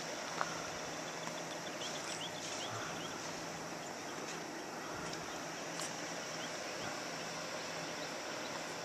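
Steady outdoor background hiss, with a few faint high chirps about two to three seconds in.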